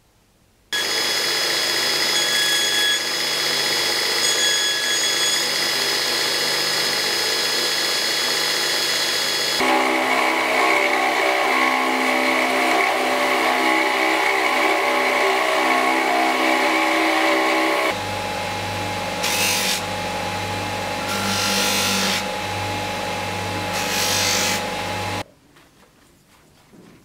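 Belt grinder running with a steady motor whine and belt hiss while a small metal fitting is held against the belt; its pitch changes abruptly twice, and in the last stretch there are several short louder surges of grinding hiss as the piece is pressed on. It starts and stops suddenly.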